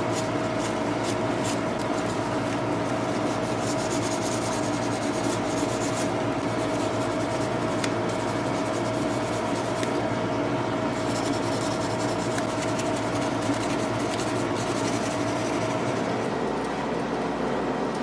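Used 2000-grit sandpaper rubbed lightly back and forth over the chrome-like coated parts of a Victorinox Deluxe Tinker pocket knife: a steady scratchy rubbing with small ticks, over a constant background hum.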